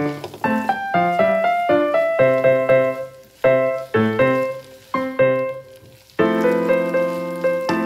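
Background piano music: a light melody of separate notes that fade away, then a held chord comes in about six seconds in.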